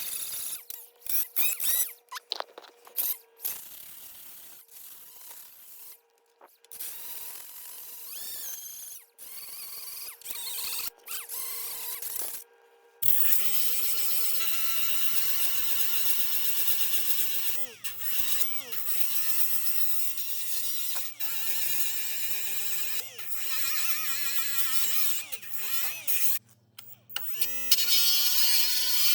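Milwaukee die grinder with 40-grit sandpaper sanding old adhesive off car frame metal. At first it runs in short choppy bursts. After a sudden change about halfway in, it runs as a steady whine whose pitch dips and recovers again and again as it is pressed onto the metal.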